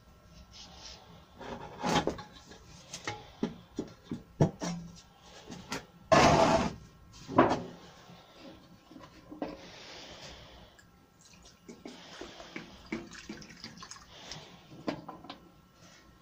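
A metal paint tin and its lid being handled on a workbench: scattered clinks and knocks, with a louder knock and scrape about six seconds in and another shortly after.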